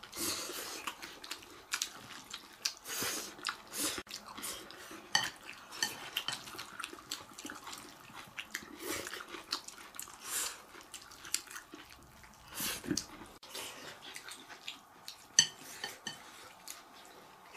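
Chopsticks clicking and scraping against ceramic bowls during a meal: scattered light clinks with short, soft eating noises between them.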